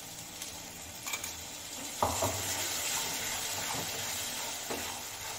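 Thin ground masala paste sizzling and frying in hot oil in an aluminium kadhai as more is poured in from a steel mixer jar, with a metal spatula stirring and scraping the pan. A sharp knock about two seconds in, after which the sizzle grows louder.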